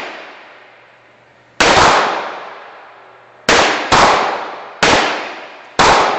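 Five gunshots at a shooting range, each cracking sharply and then fading in a long echoing tail; two come in quick succession midway.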